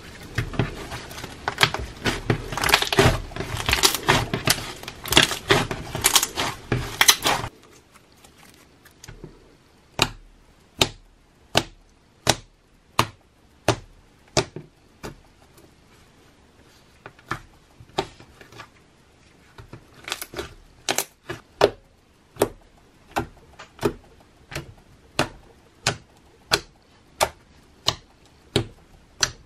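Homemade slime being worked by hand. For the first seven seconds or so it is stretched and squished, giving dense crackling and squelching. After that, fingers poke into the flattened slime and each poke gives a single sharp pop of trapped air, a little more than one a second.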